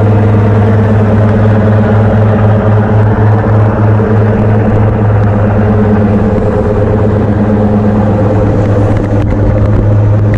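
A passenger ferry's engines running steadily under way, a loud, even, low drone with a constant hum.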